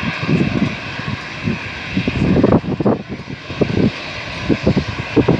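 Airliner engines running on the runway: a steady high whine with uneven low rumbling gusts over it.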